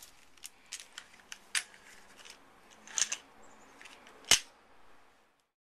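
Light clicks and knocks from handling a Speedy Toys spring airsoft revolver, then a single sharp snap from the revolver about four seconds in.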